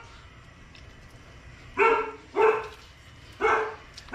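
A dog barking: three short barks, two close together about two seconds in and a third about a second later.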